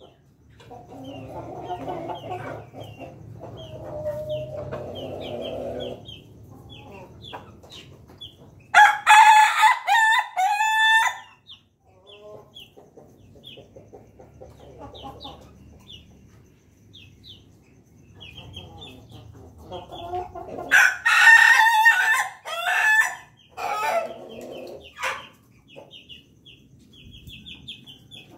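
Ayam ketawa (Indonesian laughing chicken) rooster crowing twice, about nine seconds in and again after twenty seconds, each crow breaking into a rapid stuttering 'laughing' run. Soft low clucking comes between, with faint short high chirps throughout.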